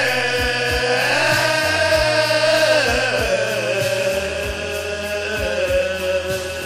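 A man's voice singing one long held note over a backing track with a bass line and a regular low drum beat. The note wavers in pitch in the middle and fades toward the end.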